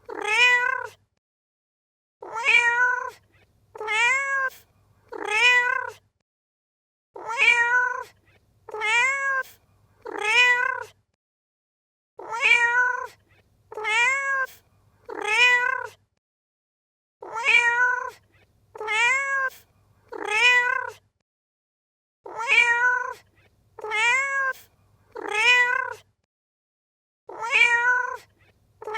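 Domestic cat meowing: clear meows about a second long, each rising then falling in pitch. They come in runs of three about a second and a half apart, with a short pause between runs, and the same recording repeats as a loop.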